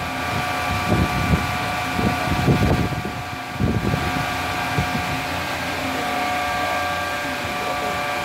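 Vacuum-forming machine's vacuum pump and cooling fans running steadily, a constant hum with a few steady whining tones and irregular low rumbles. The vacuum is being held on after forming to keep the acrylic's shape while the fans cool it.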